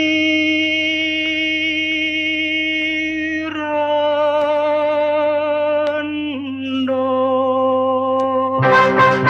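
Lao popular song with a singer holding a long vibrato note over a steady low backing, the pitch stepping twice. Near the end a brass section comes in with a quick run of short, loud chords.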